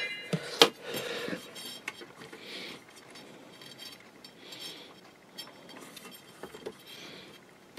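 Light metallic clicks and clinks of small hardware and tools being handled during bench assembly, with two sharper clicks in the first second and then scattered faint taps.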